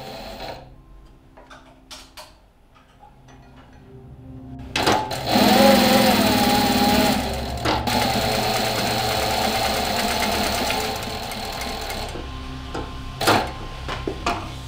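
Juki single-needle lockstitch industrial sewing machine stitching denim. After a few faint clicks, the machine runs in a loud, fast stitching rattle from about five seconds in for roughly seven seconds. Near the end come shorter stops and starts with clicks.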